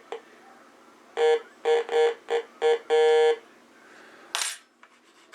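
Heathkit GD-1190 metal detector giving its audio tone: about six short beeps of one steady pitch, the last one longer, as a test target passes over the coil. The tone signals that the detector is detecting metal. A short rustling noise follows near the end.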